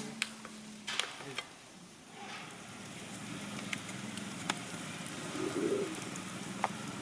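Campfire crackling: scattered sharp snaps a second or so apart over a faint steady low hum, with a short low sound about five and a half seconds in.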